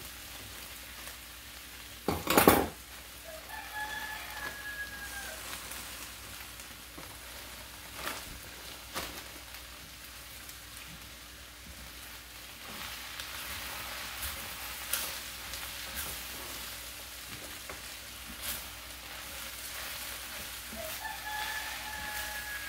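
Rice, beans and corn sizzling in a hot skillet while being stirred, with occasional scrapes and knocks of the spatula against the pan. A loud burst of noise comes about two seconds in, and a short high-pitched call sounds twice, once early and once near the end.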